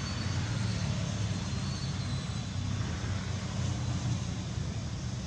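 Steady low rumble with an even hiss above it: unbroken outdoor background noise.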